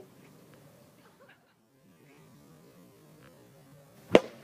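One sharp hollow crack about four seconds in, typical of a plastic wiffle ball bat hitting the ball. Faint outdoor background before it.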